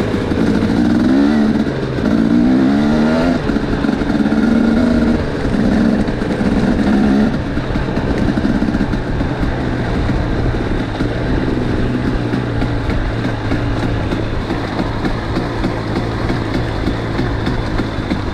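250cc two-stroke dirt bike engines revving, with repeated rising sweeps in pitch as the throttle opens and the rider shifts over the first seven seconds or so, then running at a steadier, lower pitch.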